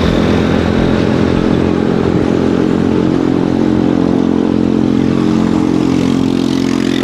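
Electric bicycle's motor running at a steady speed: a constant-pitched hum under road and wind hiss.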